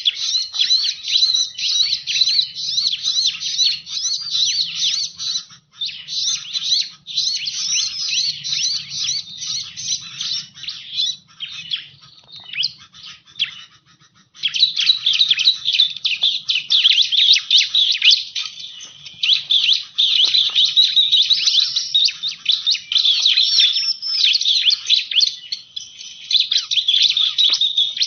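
Ciblek (bar-winged prinia) lure recording: a dense run of rapid, high chirps and chattering. It thins out and drops away briefly about halfway through, then resumes just as thickly.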